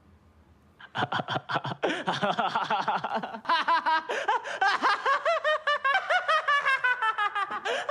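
A young man laughing, starting about a second in and going on in a long, unbroken run of rapid pitched 'ha-ha' pulses.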